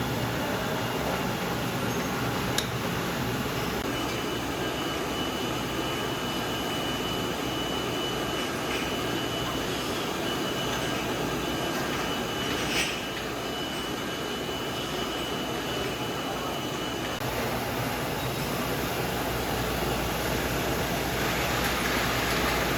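Jam production-line machinery running steadily: a continuous mechanical noise, with a thin high whine through the middle and a sharp click about thirteen seconds in.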